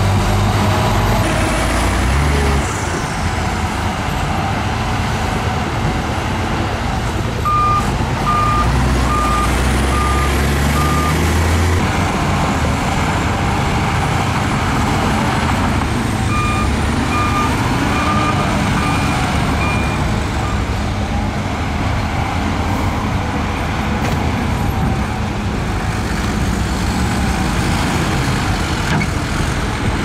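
Shantui crawler bulldozer's diesel engine running steadily under load while it pushes dirt, with a reversing alarm beeping about two times a second in two runs, a third of the way in and again just past the middle.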